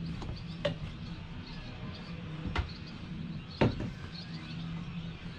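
Three sharp knocks on a boat deck, about 0.7, 2.6 and 3.6 seconds in, the last the loudest. Under them runs a steady low machine hum.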